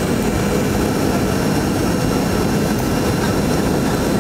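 Steady cabin noise of a jetliner in flight: the drone of the engines and rushing air heard from inside the passenger cabin. It is strongest low down, with a few faint steady whines above it.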